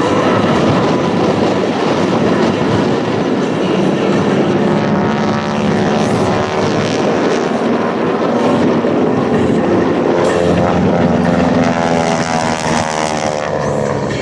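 A 1952 North American Harvard MK IV running hard through aerobatics: its Pratt & Whitney R-1340 Wasp radial engine and propeller make a loud, steady drone. From about five seconds in, the note slowly shifts in pitch as the aircraft manoeuvres.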